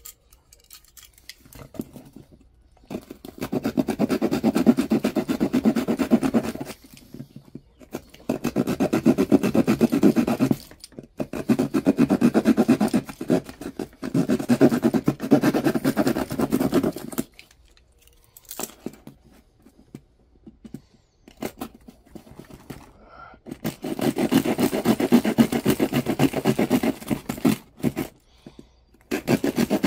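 Small folding hand saw cutting notches into a plastic mousetrap base: four spells of quick back-and-forth sawing strokes with short pauses between them.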